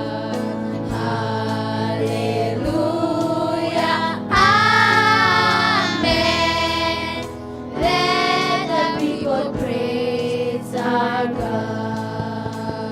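Choir singing a gospel praise song over steady instrumental backing, holding long sung notes, loudest and highest about four to six seconds in.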